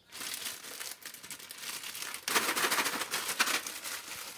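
Clear zip-top plastic bag holding pumpkin seeds crinkling as it is handled and opened, louder from about two seconds in.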